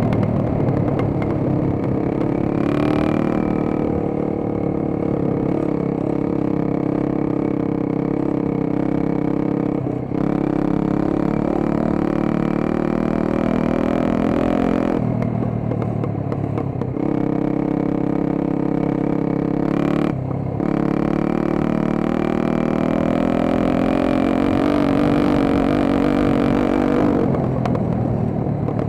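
Small dirt bike engine running under throttle while riding, the revs rising and falling, with brief drops in pitch about ten seconds in, around fifteen to seventeen seconds, and near twenty seconds as the throttle is eased.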